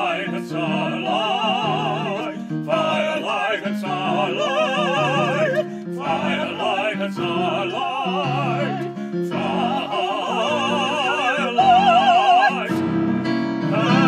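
A woman and a man singing an operatic duet together in classical style, holding long notes with wide vibrato.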